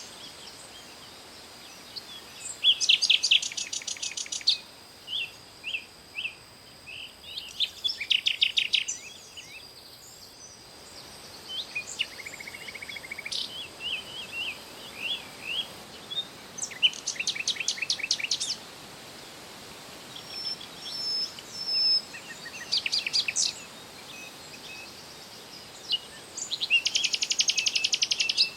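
Songbirds singing: short, fast trilled phrases of rapidly repeated high notes every few seconds, with single chirps between them, over a faint steady high hiss.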